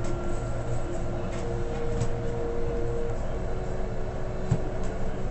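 A steady low mechanical hum with a couple of faint steady tones, and a few light clicks.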